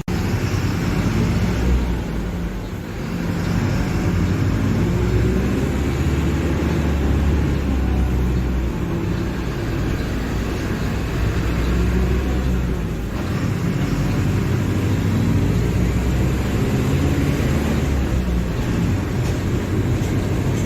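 Diesel engine of a Mercedes-Benz OF-1721 Bluetec 5 bus running, a continuous low rumble whose pitch shifts. It drops back briefly about two and a half seconds in and again about thirteen seconds in.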